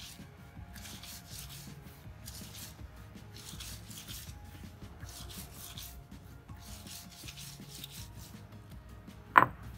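Stone roller rubbed back and forth over a flat grinding stone, crushing moist scraped coconut and seasonings, in a steady run of gritty scraping strokes. Near the end comes one sharp, loud knock.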